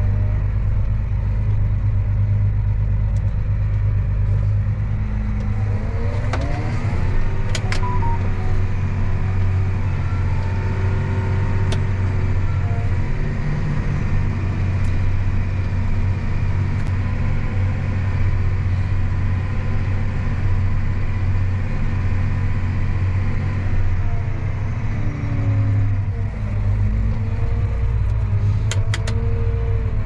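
John Deere tractor's diesel engine droning steadily, heard from inside the cab while it pulls a disc harrow. The engine note rises about six seconds in and drops back near the end, with a few faint clicks.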